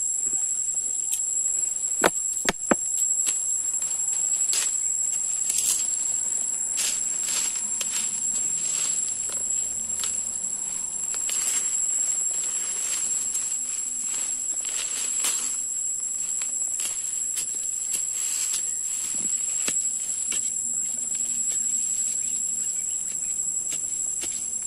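A wooden stick digging and prodding into forest soil and leaf litter: irregular scrapes and knocks, with a few sharp knocks about two seconds in. Under it runs a steady high-pitched drone.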